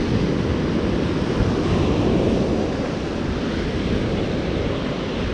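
Steady rushing of surf at the shoreline, with wind buffeting the microphone.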